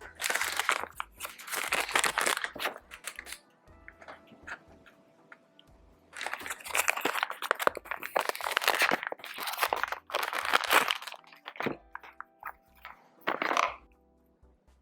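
Plastic packaging crinkling and crunching in bursts as the parts of a neon sign are unwrapped and handled, over background music.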